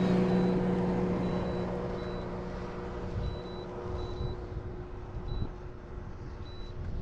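Electric motor of a motorized fishing kayak humming steadily, then fading out over the first few seconds. Several short, faint high beeps sound at uneven intervals throughout.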